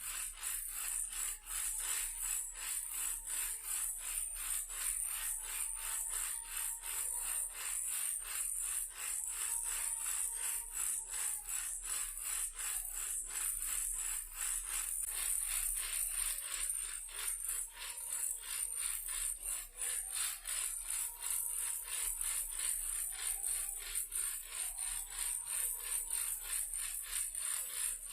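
Toy car used as a baby rattle, shaken to make a fast, even, continuous rattling of small clicks.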